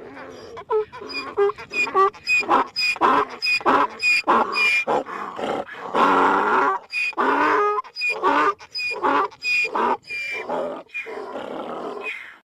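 Cartoon donkey character's vocal sound effects: a rapid string of short grunts and calls, about two a second, with one longer call about six seconds in.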